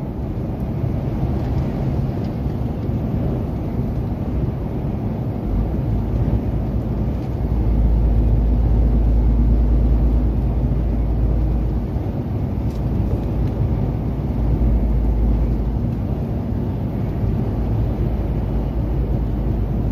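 Lorry engine and tyre noise heard from inside the cab at motorway speed: a steady low rumble that swells louder twice, about six to eleven seconds in and again around fifteen to eighteen seconds.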